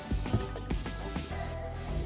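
Hand trigger spray bottle of bathroom foaming cleaner squirting inside an emptied refrigerator: three hissing sprays, broken by short pauses about half a second and a second and a half in. Background music plays underneath.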